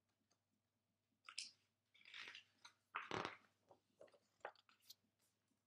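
A hardcover picture book's page being turned: a series of short paper rustles and crinkles, the loudest about three seconds in.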